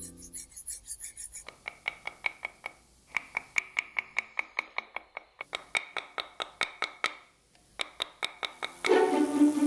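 Mallet striking a steel chisel into marble: a quick, even series of ringing taps, about four a second, with a brief pause about seven seconds in. Background music comes in near the end.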